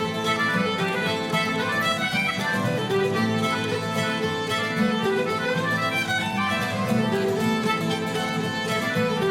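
Background music: a lively Irish traditional fiddle tune in quick, even notes.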